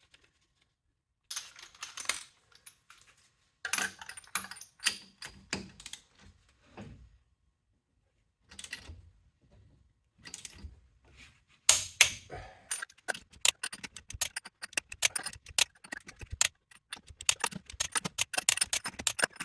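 Metal clinks and clatters of lug nuts, a socket and a torque wrench being worked while a wheel is fitted to the hub. The sounds are scattered at first, then become a dense run of rapid clicking for the last several seconds.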